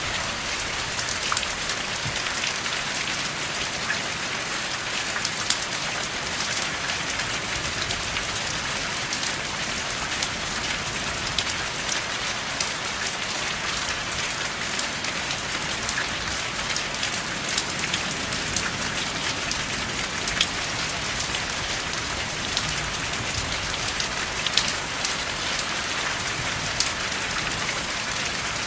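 Steady rain falling, a dense even hiss with many individual drops ticking sharply through it.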